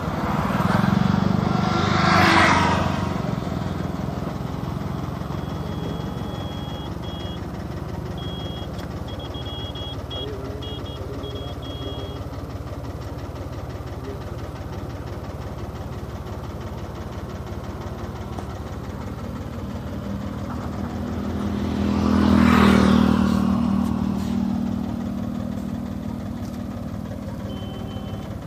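A vehicle engine runs steadily along a road. Another vehicle passes close by, swelling and fading, in the first few seconds and again about 22 seconds in.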